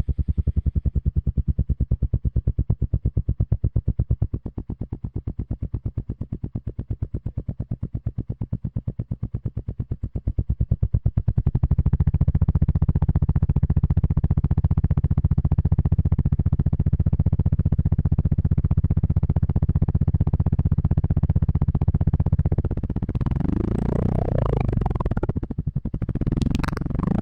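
Royal Enfield Bullet single-cylinder engine running with an even, rapid thump, first at idle. About eleven seconds in it picks up to a faster, louder steady run. Near the end it is revved twice, the pitch rising and falling.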